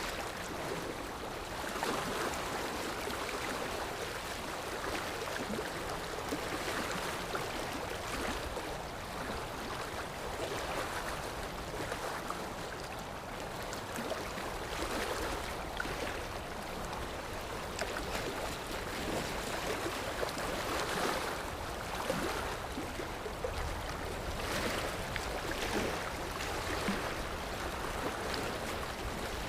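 Sea waves on a shore: a steady rush of surf that swells and eases every few seconds.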